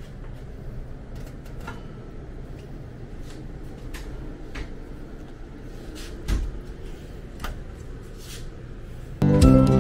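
Light clicks and knocks of motorhome kitchen fittings being handled, the hinged glass stove cover being lowered shut and cabinet doors, with one heavier thump about six seconds in over a low steady background rumble. Music comes in near the end.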